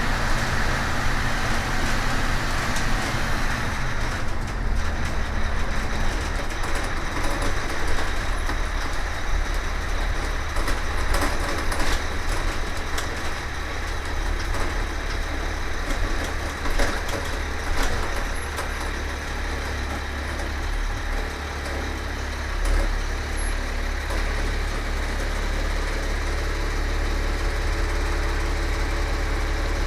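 1999 Amtran school bus's diesel engine running as the bus is driven: a steady low drone under road noise, with a few brief clicks or rattles.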